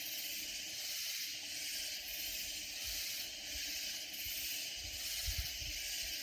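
Katydids calling in a loud chorus: a high-pitched rasping drone that pulses evenly, a little more than once a second. A few soft low thumps show up about three and five seconds in.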